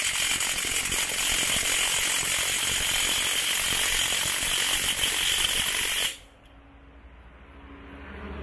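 Cordless brushless 20 V impact wrench hammering on a car's wheel lug nut for about six seconds, then cutting off suddenly. It is really loud, yet it does not break the nut loose.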